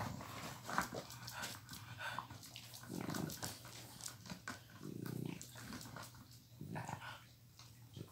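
A dog giving two short, low growls, about three and five seconds in, among faint clicks and rustling.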